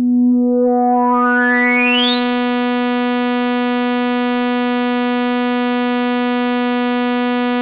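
Synthesizer playing one held sawtooth note with the filter resonance turned all the way up while the cutoff is swept upward. A whistling resonant peak climbs through the overtones over about three seconds, then the note holds bright and steady with the filter fully open.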